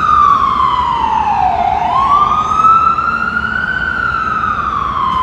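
Ambulance siren wailing in a slow cycle. Its pitch falls to its lowest about a second and a half in, climbs to a peak around four seconds, and starts falling again near the end, over a steady rumble of street traffic.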